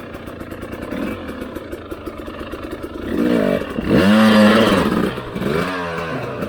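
Husqvarna TE300i two-stroke dirt bike engine running low for the first few seconds, then revved hard in several rising and falling sweeps from about three seconds in, loudest just after four seconds.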